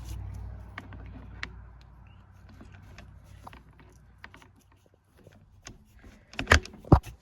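Scattered metal clicks and clinks of a half-inch impact socket being handled and worked onto the anvil of a RIDGID 18V subcompact impact wrench, with two loud sharp knocks near the end.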